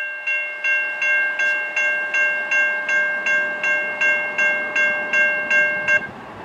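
Railroad grade-crossing warning bell ringing fast and evenly, a little under three strokes a second, as the crossing gates come down. It cuts off about six seconds in, when the gates are down.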